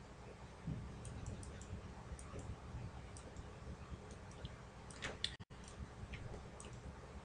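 Faint, scattered clicks of a computer mouse being operated, with a small cluster about five seconds in, over a faint steady low hum.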